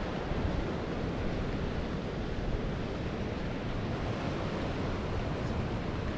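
Steady wash of sea surf breaking on the shore, mixed with wind rumbling on the microphone.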